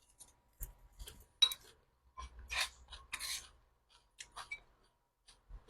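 A person eating close to the microphone: short, irregular clicks and wet smacks of chewing and mouth sounds, with light clinks of a spoon or other utensil, the strongest about a second and a half, two and a half and three and a quarter seconds in.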